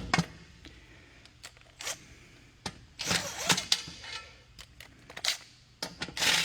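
Scattered clicks and knocks of metal wheel parts and bolts being handled, with a louder scraping clatter about three seconds in and another near the end.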